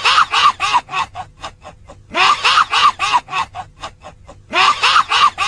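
Witch-like cackling laugh of the Mak Lampir character, in three bouts. Each bout starts with a few loud notes and trails off into a run of quicker, fainter ones.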